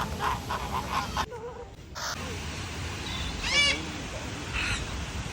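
A parrot's rapid run of repeated short calls, about five a second, which cuts off about a second in. Later two single bird calls follow, the first near the middle and the second shortly before the end.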